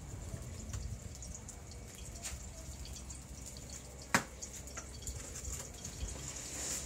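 Cooking at a wok stall: scattered small clicks and taps of utensils and dishes over a faint steady hiss, with one sharp knock about four seconds in.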